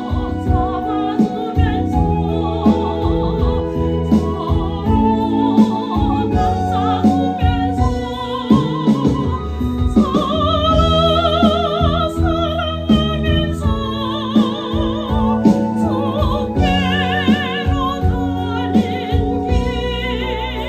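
A woman singing a slow Korean gospel song in a full, operatic style, with wide vibrato on long held notes, over a steady instrumental accompaniment.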